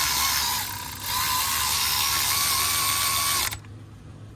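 A power tool whirring with a wavering whine as it runs in the lower mounting bolt of a replacement alternator, set snug rather than fully tightened. It eases briefly about a second in, then stops abruptly near the end.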